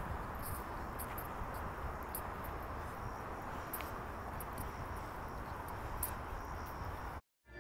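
Outdoor ambience of a steady low hiss with short, high-pitched insect chirps every second or so. It cuts off suddenly near the end.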